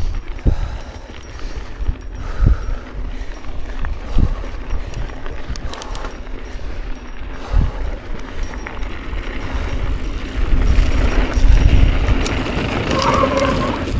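Mountain bike rolling down a dirt singletrack: wind rushing over the camera microphone and tyre noise on dirt, with the bike rattling and a few sharp knocks over bumps. The rushing noise grows louder from about ten seconds in.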